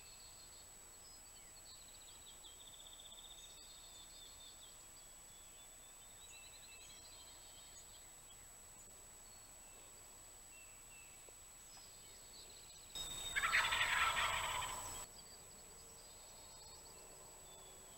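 A wild turkey gobbler gobbles once, loud and rattling, about thirteen seconds in, lasting about two seconds. Songbirds sing faintly in the background.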